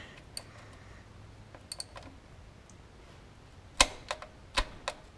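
A few sharp metallic clicks from a 3/8-drive ratchet and socket on an oil drain plug, four of them close together near the end. The plug is overtightened and has not yet broken loose.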